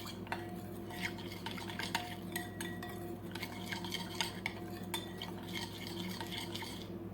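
A spoon stirring berbere into olive oil in a bowl, with many light irregular clinks of the spoon against the bowl, over a steady low hum.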